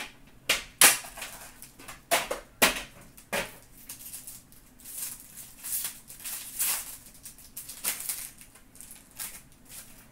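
Foil wrapper of a hockey card pack crinkling and tearing as it is opened by hand, in irregular crackling rustles with the sharpest ones about a second in.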